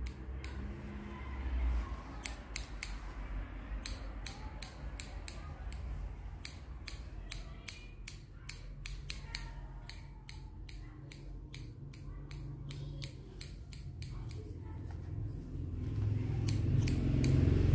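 Barber's steel hair-cutting scissors snipping beard hair in a scissor-over-comb trim: a long run of short crisp snips, several a second.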